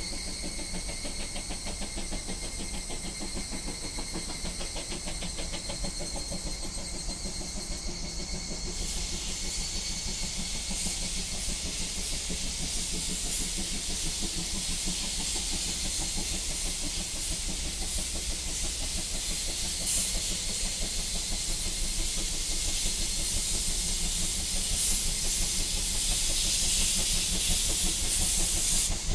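Outdoor ambience: a steady high trill with fine pulsing, joined about nine seconds in by a louder high hiss that slowly grows, over a low rumble.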